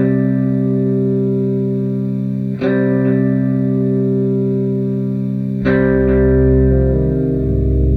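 Background music: sustained guitar-like chords with effects, changing chord about every three seconds, with a deeper bass coming in about two-thirds of the way through.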